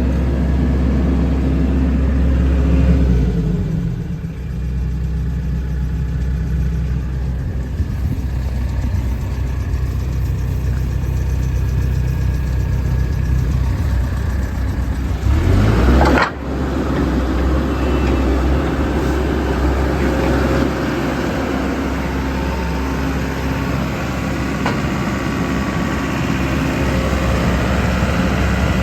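Diesel engine of a JCB JS130 tracked excavator running steadily. Its note dips about three seconds in, then a sharp rise peaks about halfway through and cuts off suddenly before the engine settles back to a steady run.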